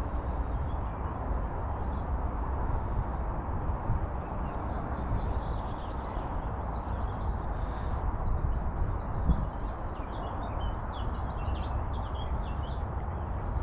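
Small birds chirping and twittering over a steady low rumble of wind on the microphone.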